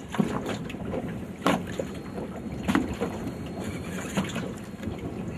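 Wind buffeting the microphone over river water lapping against a small boat, with a few short knocks or splashes.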